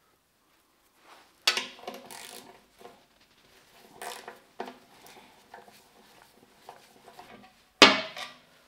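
Steel hand tools, a ratchet and sockets, clanking against the lathe's sheet-metal base: a few sharp metallic knocks with a short ring, the loudest near the end, and lighter clinks between.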